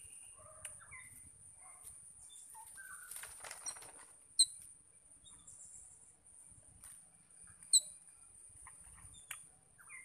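Birds and palm squirrels feeding on a lawn: scattered short chirps, a brief flutter of wings about three seconds in, and two sharp high chirps, the loudest sounds, near the middle and later on, over a steady high-pitched whine.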